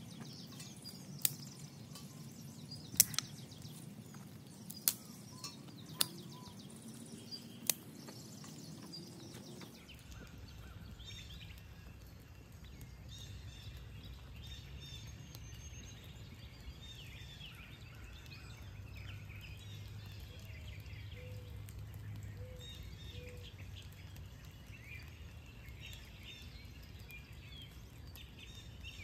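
Small fire of pine twigs and damp leaves burning in a metal fire pit, with a handful of sharp pops in the first several seconds. Birds chirp faintly over a low steady background through the latter part.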